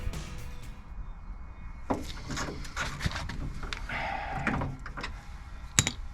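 Scattered clicks and knocks of a hand tool against the car door's metal and fittings, with a brief scrape about four seconds in and a sharp click near the end.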